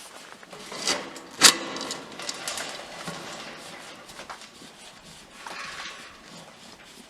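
Frost blanket fabric rustling and sliding as it is pulled off the plant beds, with a sharp knock about a second and a half in and another stretch of rustling near the end.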